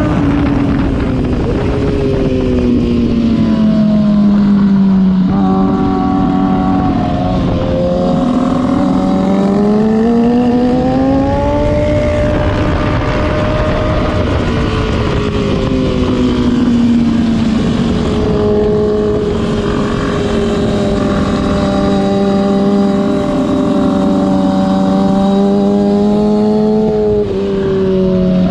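Sport motorcycle engine heard on board at track speed, with heavy wind rush on the microphone. The engine note falls and rises several times as the throttle is closed and opened through corners, then holds a lower, steadier drone in the second half, with a quick change in pitch near the end.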